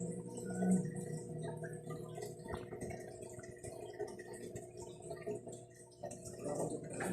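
Aquarium equipment humming steadily, with water trickling and scattered small drips and ticks.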